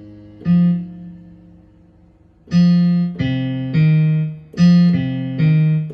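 Electronic keyboard played with a piano-like sound: a chord struck about half a second in and left to fade, then after a short lull a run of struck chords over bass notes, about two a second.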